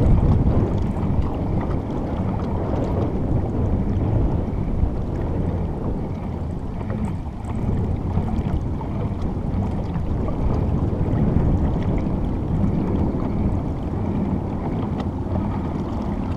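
Steady low rush of wind on the microphone and water moving along the hull of a Jackson Cruise FD pedal-drive kayak under way.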